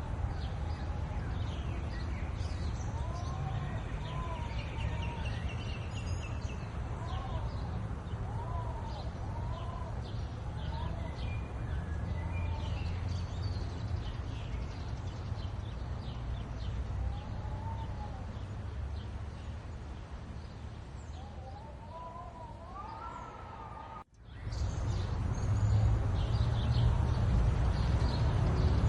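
Birds calling outdoors: a lower call that rises and falls, repeated many times, among scattered higher chirps, over a steady low rumble. About 24 seconds in the sound cuts out for a moment and comes back with the rumble louder.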